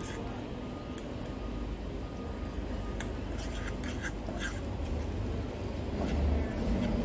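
A metal fork clicking and scraping against a frying pan several times as sliced onion, tomato and pepper are stirred in hot oil, over a light sizzle and a steady low rumble.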